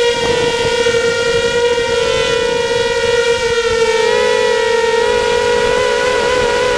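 Brushless motors and propellers of a 250-size FPV racing quadcopter (2300 kV motors on a 4S battery) whining steadily, the pitch wavering slightly as the throttle shifts, heard close up from the onboard camera.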